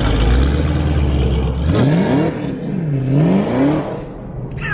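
Car engine running with a steady low note, then revved about two seconds in: its pitch rises, drops back and rises again before easing off.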